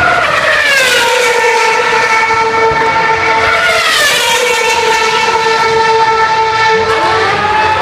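Formula One car engine running at high revs, loud and high-pitched; its pitch drops twice, holds steady, then rises again near the end.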